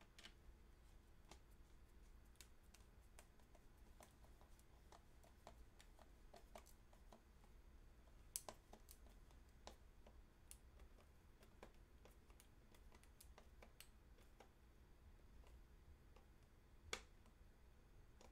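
Faint, scattered clicks of a hand screwdriver driving a 5 mm screw into a 3D-printed plastic rifle receiver, with two sharper clicks, about eight seconds in and near the end.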